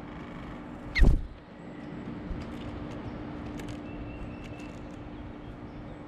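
Outdoor background with a steady low hum. About a second in comes a short thump with a quick high note sliding downward, then a few faint high ticks.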